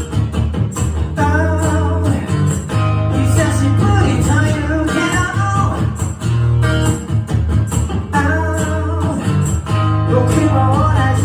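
Live song: a vocalist sings phrases over strummed guitar, with a strong bass line and a steady beat underneath.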